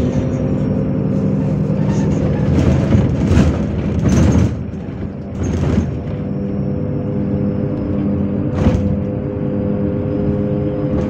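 MAZ-103 city bus engine running steadily, heard from inside the passenger cabin, with a few short rushes of noise about three, four, six and nine seconds in. It goes briefly quieter around five seconds in.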